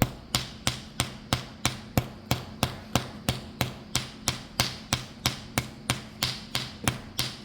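Hand slapping on bare skin of a person's back, about three even slaps a second, kept on the same spot. This is paida slapping therapy, meant to raise sha.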